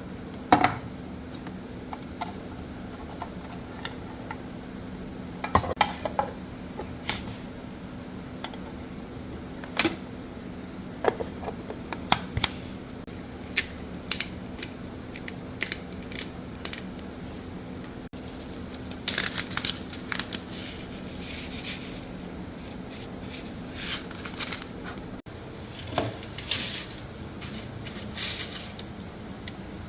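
Dishes and cutlery clinking and knocking at irregular intervals, over a steady low hum that cuts off about 25 seconds in.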